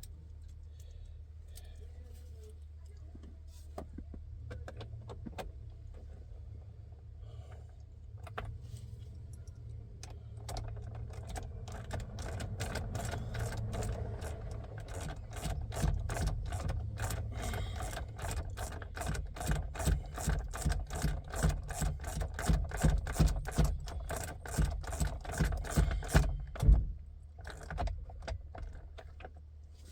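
Ratchet wrench clicking in quick repeated strokes as a bolt is run in, starting about a third of the way in, growing louder and stopping a few seconds before the end.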